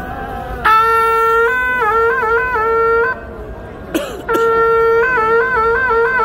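A wind instrument blown in long held notes broken by quick wavering ornaments, in two phrases with a short break between them, and a brief sharp knock in the break.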